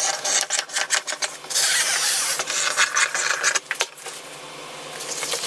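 Scissors cutting through a panel of black fabric: a run of quick blade snips and rustling of the cloth, with a longer unbroken stretch of cutting noise about a second and a half in, growing quieter towards the end.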